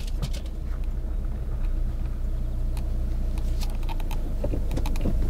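Volkswagen Jetta TDI's turbodiesel engine heard from inside the cabin, running at low revs and growing slightly louder as the car pulls away slowly, with a few light clicks.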